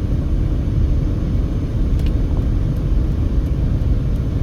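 Steady road and wind noise inside a moving passenger car, a low even rumble.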